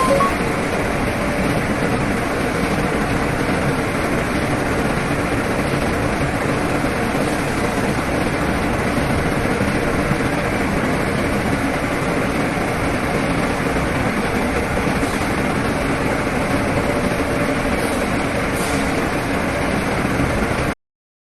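Steady mechanical noise of a running engine, even and unchanging, that cuts off suddenly near the end.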